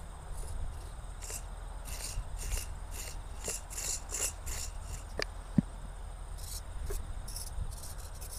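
Insects chirping in short, irregular bursts over a steady low wind rumble, with a single sharp click a little past halfway.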